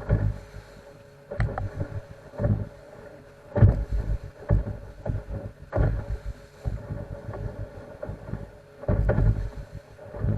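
Fishing boat running fast through a slight swell: a steady engine drone under repeated heavy thuds, about one a second, as the hull slams onto the waves, with wind buffeting the microphone.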